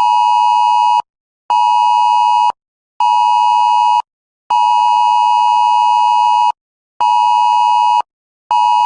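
Wireless Emergency Alert attention signal: a loud steady two-pitch tone (853 and 960 Hz) pulsing in a repeating pattern of one long tone followed by two short ones, with half-second gaps. It announces an incoming emergency alert, here a civil danger warning.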